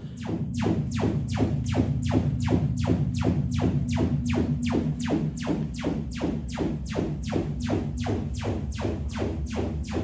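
IKEA Symfonisk bookshelf speaker (built by Sonos) playing its Trueplay room-tuning test signal: a fast, even train of rising sweeps, about three a second, over a steady low hum. The sound is the speaker measuring the room so it can tune itself.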